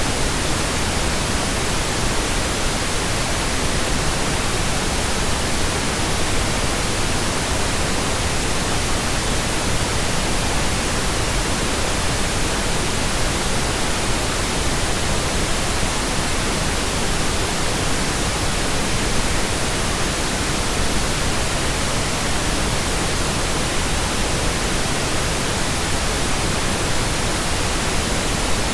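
Steady, loud synthetic pink noise: an even, unchanging hiss generated in software.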